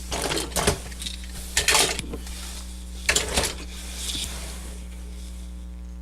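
Hard plastic toy robot figures clicking and clattering as they are handled and set down, in three short bursts over a steady electrical hum.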